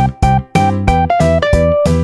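Instrumental background music: a keyboard melody of short, sharply struck notes over a steady beat.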